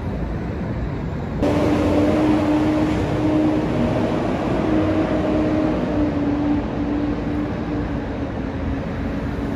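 City street traffic: a rumbling wash of road noise with a steady engine hum that comes in abruptly about a second and a half in and carries on.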